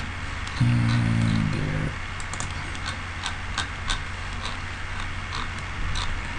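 Computer mouse clicking every half second or so over a steady low electrical hum. About half a second in, a drawn-out vocal hum lasting just over a second.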